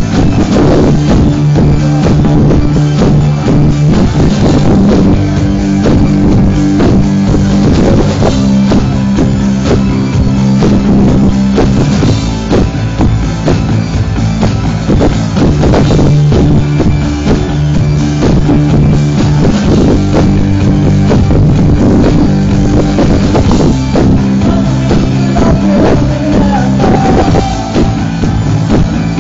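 Rock band playing live and loud: drum kit hits over held electric guitar and bass guitar notes.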